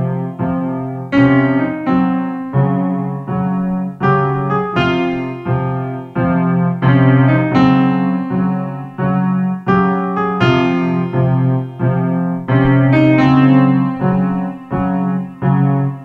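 Piano music playing over the credits: a run of struck chords and notes, about one to two a second, each ringing and fading before the next.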